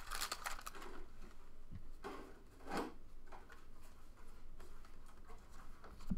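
Foil wrapper of a trading-card pack crinkling as it is pulled open, then a stack of baseball cards being slid and flipped through by hand, with scattered soft scrapes and ticks.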